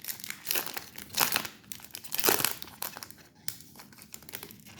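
Trading card pack's foil wrapper being torn open and crinkled, with louder rips about a second in and just past two seconds, then quieter crinkling as it is handled.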